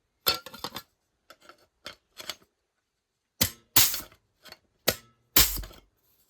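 Clarke pneumatic air joggler working along a 2mm aluminium strip: a string of sharp metallic clacks as the jaws cycle on the sheet, with the heaviest strokes, one ending in a low thud, in the second half.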